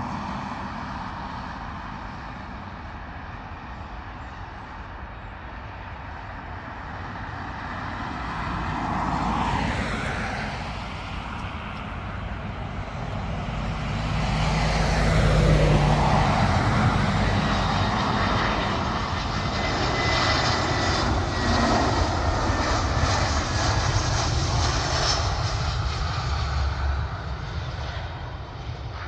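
Airbus A320-214 on final approach with gear down, its CFM56-5B jet engines growing steadily louder as it comes in low. The jet is loudest through the second half as it passes, with a faint whine slowly dropping in pitch, then eases a little near the end.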